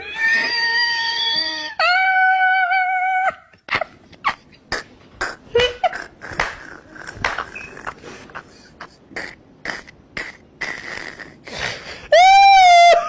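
A person screaming: two long, high-pitched held screams, then a stretch of scattered short knocks and clicks, and a loud rising-and-falling scream near the end.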